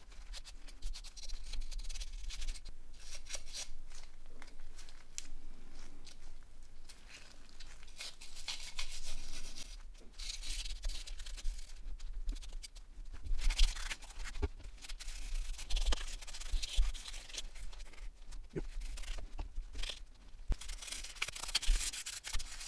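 Rubbing and scrubbing dirt off the inside of an opened mobile phone, in irregular strokes with short pauses.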